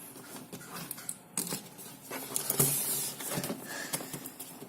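Packaging being handled and unwrapped: irregular crinkling, rustling and small knocks, with a louder rustle about two and a half seconds in.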